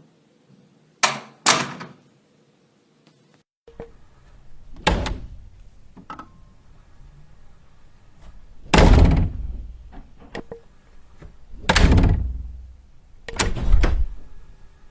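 A series of door slams, each a sudden heavy thud with a short ring-out. Two come in quick succession about a second in; then, over a different room background, four more follow a few seconds apart, the loudest about two-thirds of the way through.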